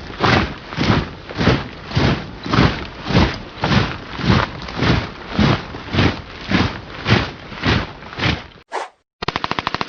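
Gunfire sound effect: a steady run of heavy shots, a little under two a second, each with a low boom. Near the end it breaks off, one short shot follows, then a fast rattling burst of rapid fire.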